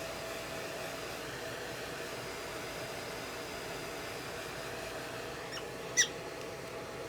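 Steady hum of a hair dryer blowing. About six seconds in there is one short, high-pitched squeak, with a fainter one just before it.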